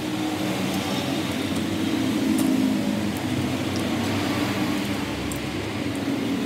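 Steady mechanical hum of a running motor or engine, with a few faint light clicks.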